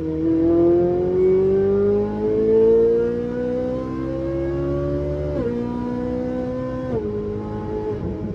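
Ferrari engine with a Formula 1–style sound running hard on track. Its pitch climbs steadily through a gear for about five seconds, then drops abruptly twice at gear changes, about five and a half and seven seconds in.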